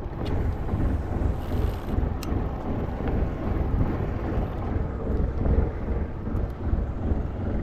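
Wind buffeting the microphone on a boat at sea: a loud, dense, low rumble with splashy water noise and a few sharp clicks.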